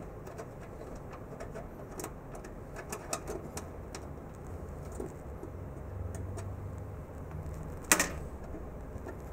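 A tiny screw being worked out of the tape library's rail by hand: light scattered clicks, with one sharp click about eight seconds in, over a steady low hum.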